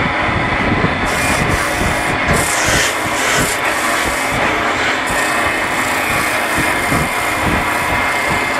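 Wood lathe running with a turned wooden spindle spinning, while hand-held sandpaper rubs against the turning wood. The steady motor hum and the rough rubbing noise hold throughout.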